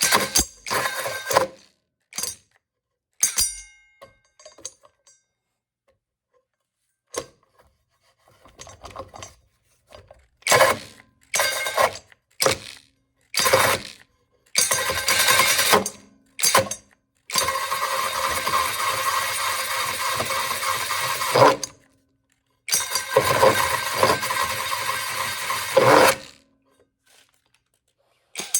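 Mellif 12-volt cordless drill driving a 5-inch hole saw into wood in short stop-start bursts, the cut stalling again and again because the trigger is only partly pulled. In the second half it runs two longer cuts of about four and three seconds.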